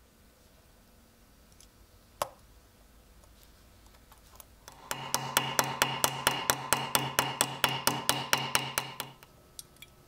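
Small ball-peen hammer tapping a steel pin on a bench anvil, peening it over to rivet the knife's liners and brass bolster together. The taps come fast and even, about six a second for some four seconds, over a steady metallic ring. A single sharp click comes about two seconds before the hammering.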